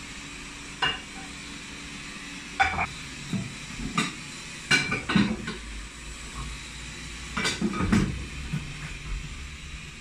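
Dishes and kitchen utensils clinking and knocking against each other and the counter in a few separate clatters, the busiest about halfway through and again near the end, over a steady background hiss.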